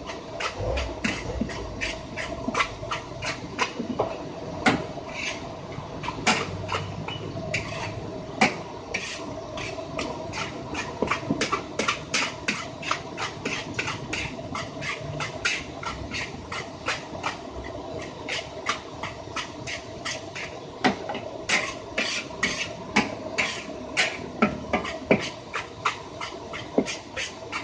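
Metal spatula striking and scraping a wok over and over, about three strokes a second, as fried rice is stir-fried, with a steady hum underneath.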